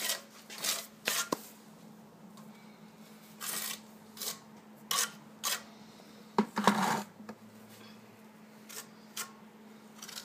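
A series of short, sharp clicks and rustles, about a dozen, scattered irregularly, the loudest a little before seven seconds in, over a faint steady hum.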